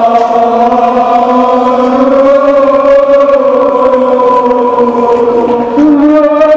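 Muharram mourning chant (noha): voices sing one long held note that wavers slightly, then step up in pitch near the end.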